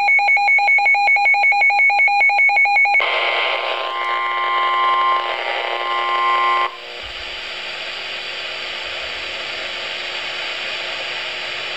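Emergency Alert System alert tones: a fast-pulsing two-pitch tone for about three seconds, then a held chord of steady tones with a brief rise in pitch partway through. It cuts off suddenly into a steady hiss.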